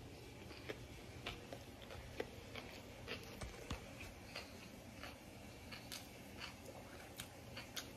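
A person chewing a mouthful of sushi roll with her mouth closed: a run of small, irregular mouth clicks and smacks.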